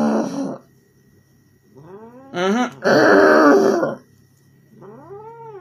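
Domestic cat yowling and growling in protest while its claws are being trimmed. A loud harsh yowl ends about half a second in, another rises into a long harsh yowl from about two to four seconds in, and a rising-then-falling yowl starts near the end.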